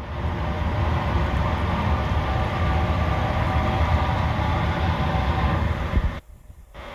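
A steady low rumble with a faint hum above it, which cuts out abruptly for a moment near the end.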